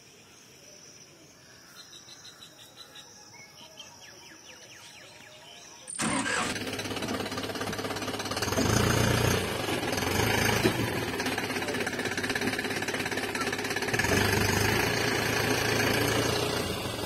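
Near quiet with a few soft clicks, then a truck engine sound starts abruptly about six seconds in and runs with a steady rattle, growing louder twice.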